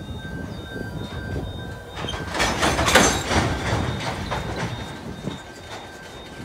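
Coal hopper wagons of a loaded coal train rolling past, steel wheels rumbling on the rails, with a louder stretch of clanking and clattering between about two and four seconds in.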